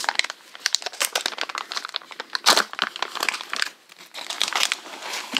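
Packaging crinkling and rustling in quick irregular crackles as an item is unwrapped and pulled out of a subscription box by hand.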